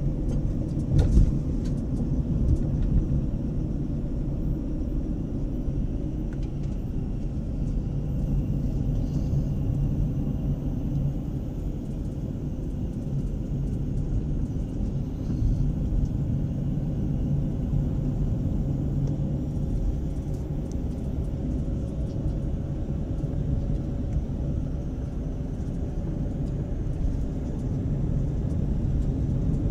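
A car driving on a winding mountain road: steady engine and tyre rumble, with a faint steady hum and a short knock about a second in.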